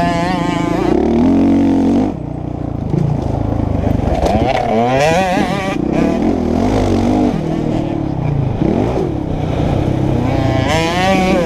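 Two-stroke 85cc motocross bike engine revving hard under load, its pitch sweeping up and dropping again and again as the rider accelerates, shifts and backs off through the turns.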